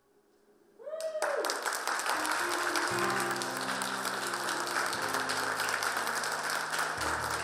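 Audience applause breaking out about a second in, just after a single voice whoops, and continuing as dense clapping. Quiet music with long held notes starts underneath the applause.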